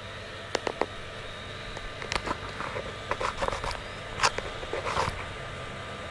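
Stray cats eating from paper and plastic food wrappers on the floor: scattered soft rustles and sharp little clicks, most of them between about two and five seconds in, over a steady low hum.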